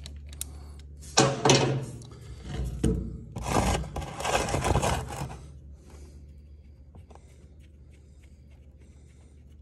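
Scraping and rubbing handling noise as the side engine drain plug, just broken loose, is spun out of the crankcase by hand. It comes in several loud bursts over the first five seconds, then settles to faint scattered ticks.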